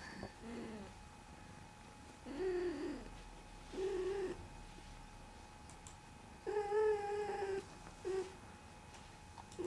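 Domestic cat making a series of short mewing calls, each rising and falling in pitch, with a longer, louder held call about six and a half seconds in.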